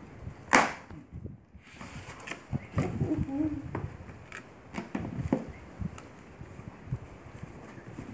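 Cardboard shipping box being opened by hand: one sharp snap about half a second in, then scattered clicks and the scrape and rustle of cardboard flaps being pulled back.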